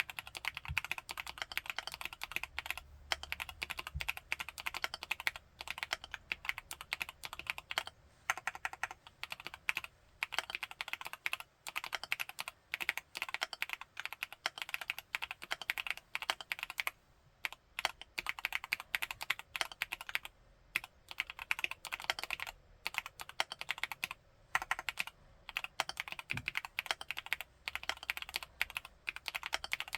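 Continuous fast typing on a Createkeebs Luminkey75 75% mechanical keyboard with Gateron Baby Raccoon linear switches: dense runs of keystrokes broken by brief pauses.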